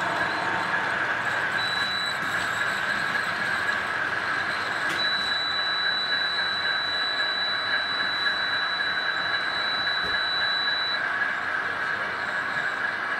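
Model train running steadily on a layout, a continuous mechanical running sound, with a thin, high steady whine for about six seconds in the middle.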